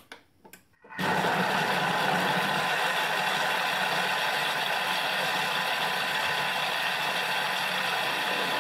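Thermomix food processor blending a wet cheese-and-egg batter at speed 5. A few light clicks come first, then about a second in the motor starts and runs steadily.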